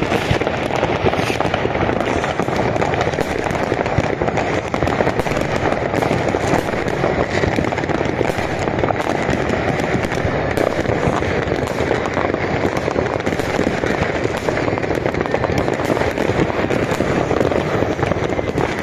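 Massed fireworks, rockets and ground fountains among them, with many going off at once in a dense, unbroken crackle of bangs that never pauses.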